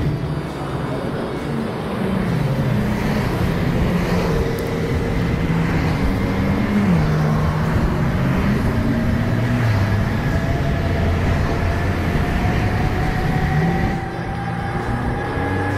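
A vehicle running, with a motor whine that rises slowly in pitch through the second half as it speeds up.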